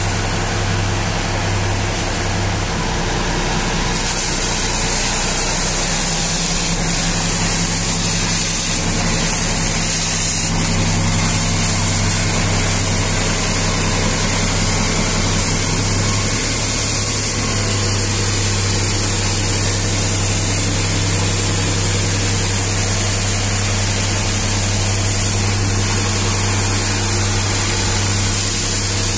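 A high-pressure water jet hissing as it sprays the tyre and wheel of a large mining dump truck, over the steady low hum of an engine running.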